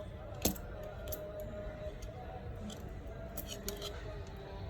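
Small metal tools and phone parts clicking and tapping during an iPhone 7 teardown: one sharp click about half a second in and a few light ticks around the middle.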